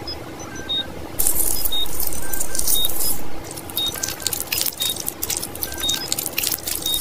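Light background music with a repeating blip pattern; about a second in, a loud steady hiss lasts about two seconds. Then wet, crackly squishing as tweezers pick at the soft, rotten flesh of an opened banana.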